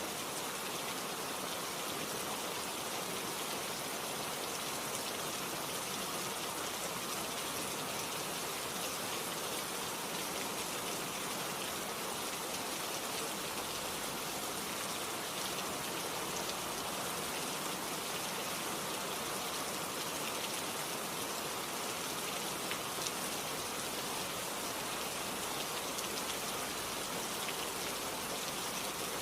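Heavy rain falling steadily, a dense even hiss with fine scattered drop patter on surfaces.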